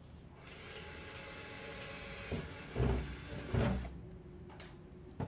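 Wooden cabinet drawer being handled: a scraping rustle for about three seconds, with two dull thumps near the middle.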